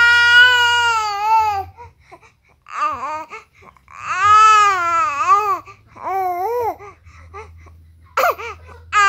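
Infant crying in repeated wavering wails with short pauses for breath between them: a long cry at the start, another long one about four seconds in, and shorter cries between and near the end.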